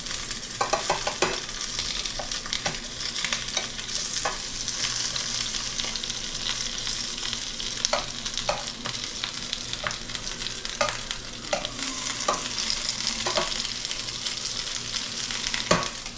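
Dumplings frying in oil in a skillet, with a steady sizzle and scattered light clicks of metal tongs against the pan as they are turned. A sharper knock near the end as the lid goes back on the pan.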